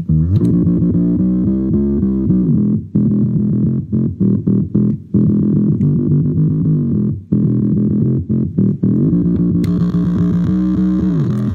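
Electric bass playing a riff through a Boss OC2 octaver with the clean signal switched off, so only the octave-processed tone is heard, in phrases with short gaps. The sound turns brighter near the end.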